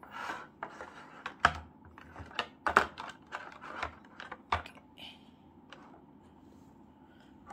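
Irregular plastic clicks and taps from handling a Baseus Armor motorcycle phone holder over its clear plastic packaging tray, with sharper clicks about a second and a half in, near three seconds and near four and a half seconds. It goes quiet after about five seconds.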